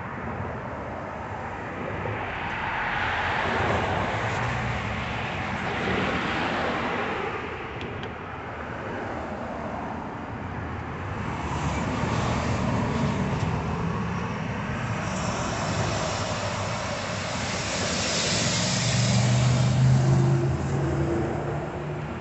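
Road traffic: cars driving past one after another, tyre and engine noise swelling and fading, loudest near the end as a vehicle with a low engine note passes close.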